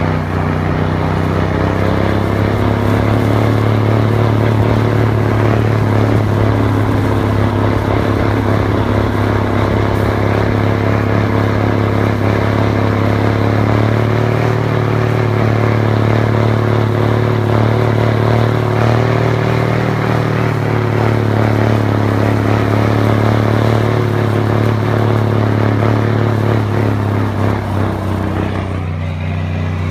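Heavy military semi truck's diesel engine pulling steadily under load, a deep constant drone, mixed with the rough clatter of a manure spreader running and throwing manure. The higher clatter thins slightly near the end.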